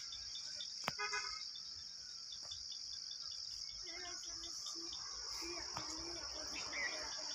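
Insects shrilling in one steady high-pitched drone. Faint voices come in from about four seconds in.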